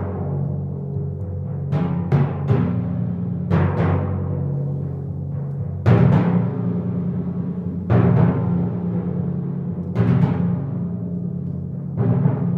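Copper-bowled timpani played solo with mallets: struck notes ring on with a deep, sustained pitch between strokes, and heavy accented strokes land about every two seconds in the second half.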